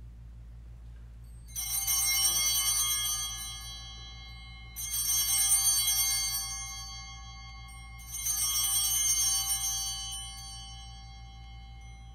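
Altar bells (sanctus bells) rung three times at the elevation of the host after the consecration, each ring a shaken cluster of small bells that jangles for about a second and rings on, fading.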